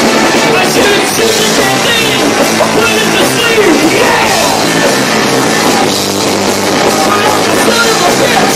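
Live punk rock band playing loud: electric guitars, bass and drum kit in a dense, steady wall of sound. It is distorted by a camcorder microphone overloaded by the volume.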